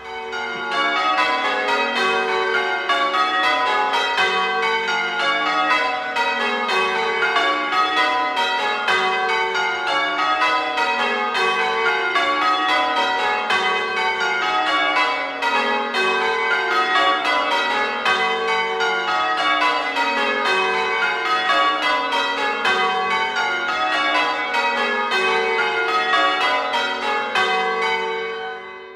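A ring of church tower bells being rung in changes: a steady stream of strikes stepping down in pitch, in a pattern that repeats over and over. The ringing fades away near the end.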